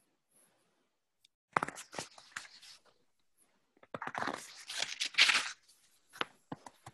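Rustling and crackling noise in two spells, starting about a second and a half in and again near four seconds, made of many quick crackles.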